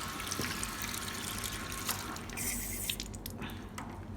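Water running through a tankless gas water heater and tap with a steady hiss that cuts off suddenly about three seconds in, followed by a few light clicks.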